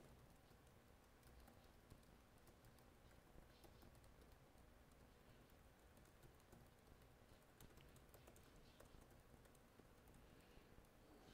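Faint typing on a computer keyboard: a continual run of light key clicks.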